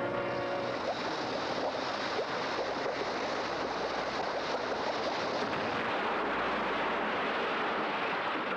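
Animated-film explosion sound effect: a long, steady rush of noise, like a blast that keeps going. It sets in about a second in, as the model globe bursts.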